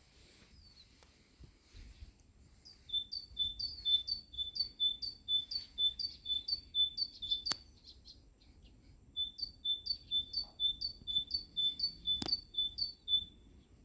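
Great tit singing its repeated two-note song, a high falling note dropping onto a lower steady one about two and a half times a second. It sings two long runs with a short pause between them. Two sharp clicks sound, one about halfway through and one near the end.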